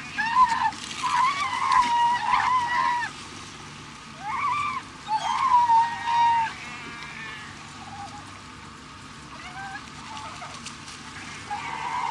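Sea lions in a crowded colony calling: high, wavering bleats, several at once for the first three seconds, more from about four to six and a half seconds in, fainter ones after that and another burst near the end.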